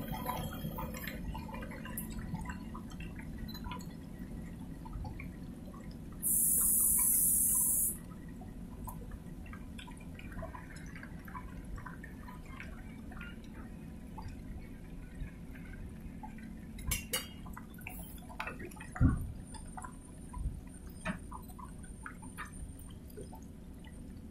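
Water splashing and trickling on a flooded railway track as a container freight train moves slowly through it, over a steady low rumble with scattered small clicks. A brief high hiss comes about six seconds in, and a single sharp knock, the loudest sound, near nineteen seconds.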